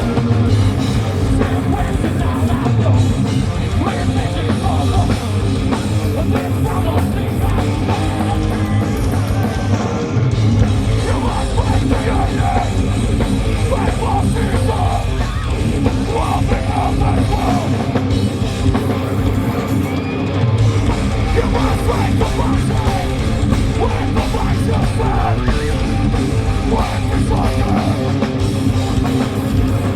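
Heavy metal band playing live: loud guitars and drums with yelled and sung vocals, recorded from the crowd.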